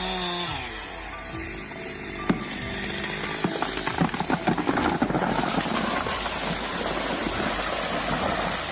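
Chainsaw engine running, then dropping in pitch as it is throttled down within the first second. A sharp crack follows a little after two seconds in, then a rapid series of cracks and snaps for a second or two, typical of a tree's wood breaking as it goes over, followed by steady noise.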